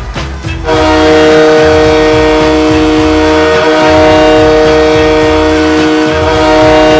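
Hockey goal horn: a loud multi-tone horn chord that starts under a second in and holds steady, with a low rumble underneath.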